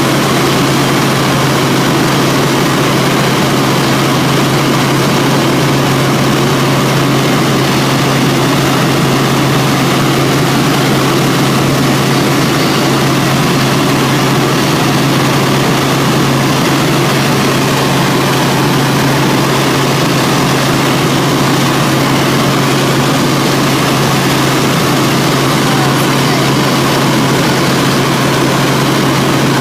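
Helicopter in flight heard from inside the cabin: the loud, steady drone of engine and rotor with a constant low hum underneath.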